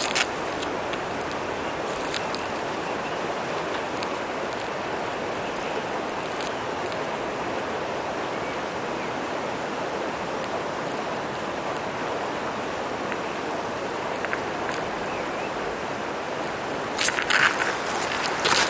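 Steady rush of a river flowing over stones and gravel. Near the end, a few short crunches of boots shifting on loose river gravel.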